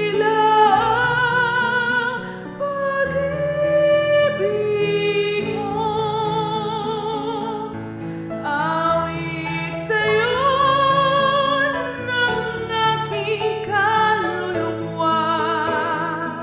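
A woman singing a Tagalog worship song, holding long notes with vibrato, over a soft instrumental accompaniment of held chords.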